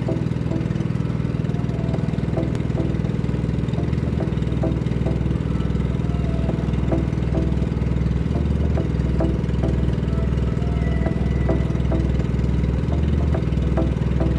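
Outrigger boat's engine running steadily: an even low drone with light ticks repeating through it.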